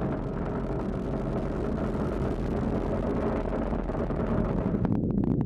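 Rocket engine noise from the SpaceX Falcon 9's first stage and its nine Merlin engines during ascent: a steady, dense rumble. Just before the end the hiss drops away, leaving a heavy rumble with sharp crackles.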